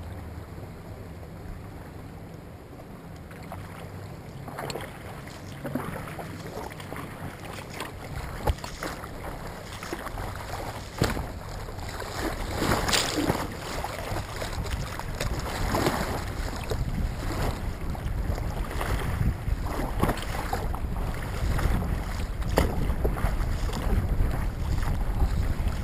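Turbulent tidal current slapping and splashing against the nose of a stand-up paddleboard, with irregular sharp splashes starting about four seconds in. Wind rumbles on the microphone, growing louder through the second half.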